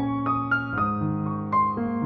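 Background music: a melody of single notes changing every quarter to half second over held low notes.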